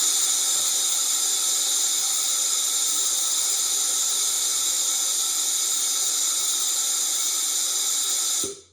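Compressed air and moisture hissing steadily out of an air compressor tank through an electric solenoid drain valve opened by its timer, an automatic blow-down of the tank; it cuts off abruptly near the end as the valve closes.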